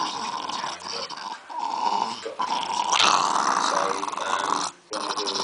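Yorkshire terriers growling at each other over a large bone, a rough, continuous growl with a few short breaks and a brief stop near the end.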